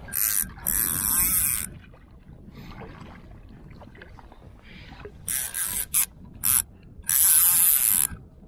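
Fly reel's click-and-pawl drag buzzing in loud bursts, two early and several later, the last about a second long, while a large hooked white-spotted char is being fought.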